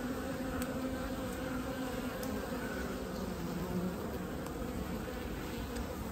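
Honeybees humming steadily on the combs of an opened hive super.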